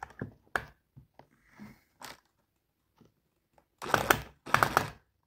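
Cordless drill driving a screw into wood in two short, crunchy bursts about four seconds in, after a few faint clicks and knocks.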